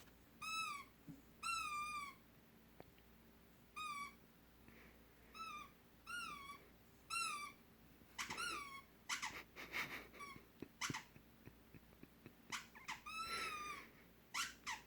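Short, high-pitched squeaks repeated in small irregular groups, each a quick dip and hook in pitch. A flurry of denser scratchy sounds comes about eight to ten seconds in and again near the end.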